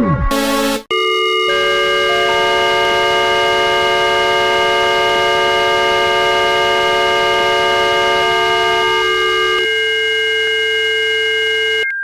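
Synthesized emergency alert attention tone: a loud chord of many steady tones that enter one after another, hold for about ten seconds, then thin out as tones drop away near the end before cutting off.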